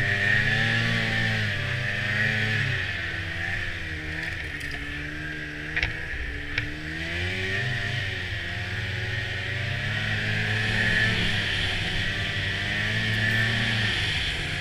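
Snowmobile engine running under way, its pitch falling as the throttle eases off and then climbing again as it speeds back up. Two sharp clicks come about six seconds in.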